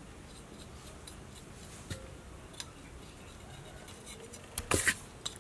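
A knife scraping and cutting small fish over a metal basin, with faint scrapes and clicks and one louder, brief knock near the end.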